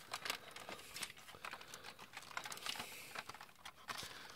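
Hard plastic parts of a DX Great Sungard transforming, combining robot toy clicking and rattling as they are handled and pushed together. The clicks are faint and come in a quick, irregular run.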